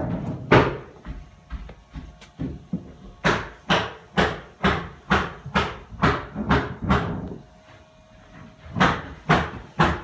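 Footsteps walking at about two steps a second, each a sharp knock, with a short pause about eight seconds in. A faint steady hum runs underneath.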